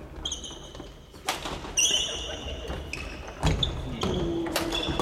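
Badminton rally on an indoor wooden court: rackets hitting the shuttlecock with sharp cracks, a few times over, and sneakers squeaking briefly on the floor between shots.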